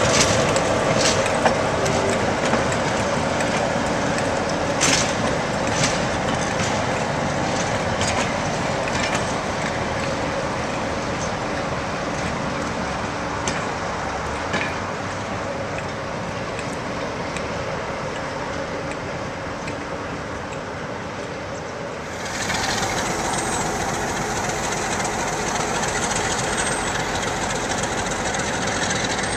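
Class 47 diesel-electric locomotive, a Sulzer V12, running steadily as it hauls a Pullman coach away, with occasional sharp wheel clicks over rail joints and points. The sound jumps suddenly to louder and brighter about three quarters of the way through.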